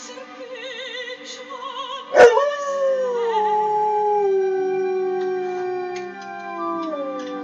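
An opera soprano sings with wide vibrato from a TV, then about two seconds in a sharp click is followed by an Alaskan Malamute's howl. It is one long howl that slides down in pitch in steps and then holds, over the music.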